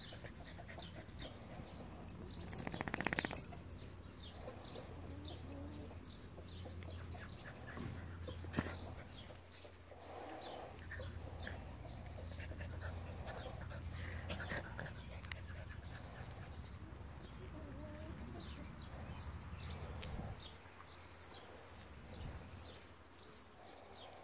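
Rat terrier mother and her five-to-six-week-old pups at rough play, heard faintly: soft scuffling and small dog sounds, with one brief louder sound about three seconds in.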